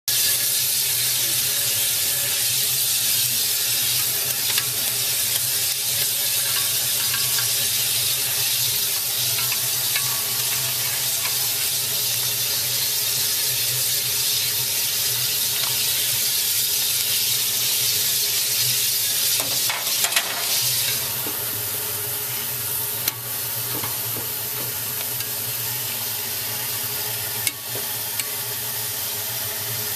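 Steady hiss from the firebox of a Crown Metal Products 4-4-0 steam locomotive being fired, with a few short metallic clinks from the fire rake. The hiss drops somewhat about two-thirds of the way through.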